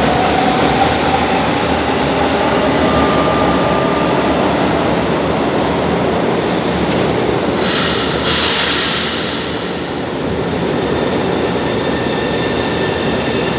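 São Paulo Metro train pulling into a station and slowing to a stop: a steady rumble of wheels and running gear, with a brief thin squeal about three seconds in. A sharp burst of air hiss comes about eight seconds in.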